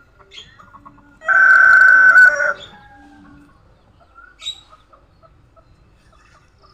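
A rooster crowing once, a loud call of about a second and a half that starts a little over a second in. Faint short calls follow, one more noticeable near the middle.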